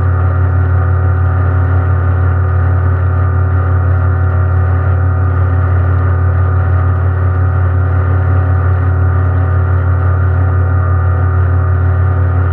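Electric motor of a radio-controlled model boat running steadily, a loud low hum with a set of steady overtones, heard from on board through the hull.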